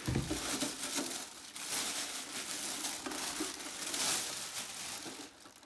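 Plastic bag crinkling and rustling around a printer as it is lifted out of a cardboard box, with a low bump right at the start.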